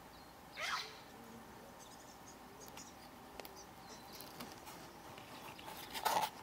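Short, squeaky animal calls over quiet open air: a brief rising call just under a second in, and a louder, harsher call near the end, with faint scattered clicks between them.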